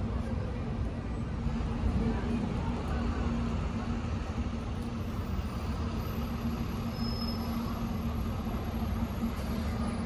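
Steady city traffic noise: a low rumble of passing vehicles with a steady engine hum underneath.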